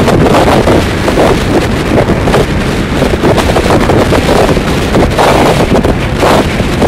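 Loud, uneven wind buffeting on the microphone at the open door of a Rajdhani Express coach running at full line speed, with the train's running noise underneath.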